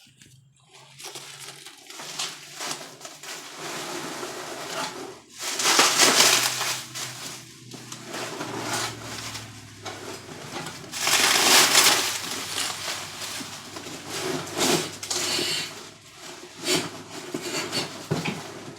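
A metal body brace being handled and worked loose, with irregular scraping and clattering and two loud scraping bursts, about six and about twelve seconds in.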